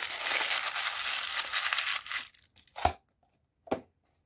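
Crumpled paper wrapping crinkling and tearing as a knife is unwrapped from it, for about two seconds. Then two sharp knocks, a little under a second apart.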